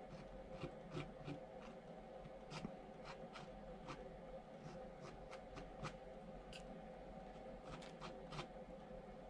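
Faint, irregular small taps and scrapes of a metal palette knife dabbing thick acrylic paint onto a stretched canvas, over a steady background hum.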